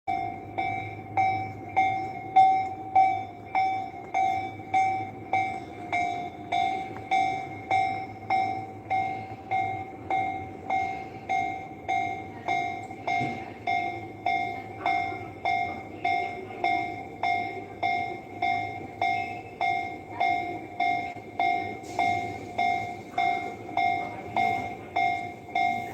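Japanese railroad-crossing electronic warning bell ringing continuously: an evenly repeated clanging ding, about three strikes every two seconds, warning that the crossing is closed to traffic.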